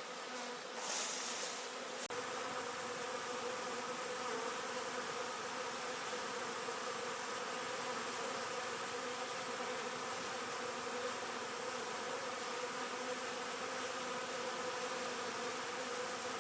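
Many honeybees buzzing in a steady, even hum.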